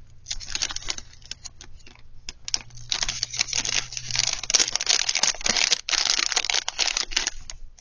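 Plastic blister packaging and its cardboard backing card crackling and crinkling as a package of mini makeup sponges is torn open by hand, a dense run of rapid clicks that is busiest in the second half.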